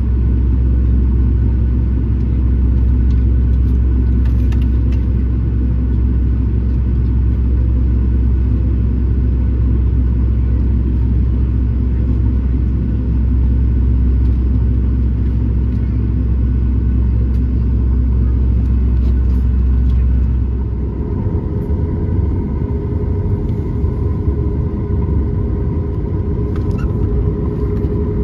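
Boeing 737-900ER cabin noise from a window seat over the wing: a steady low rumble of the jet engines while taxiing. About 20 seconds in the sound changes: the rumble becomes rattly and a steady whine comes in from the engines.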